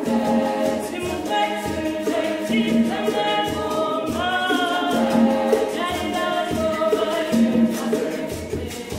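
Women's choir singing together in held chords, the notes changing every second or so.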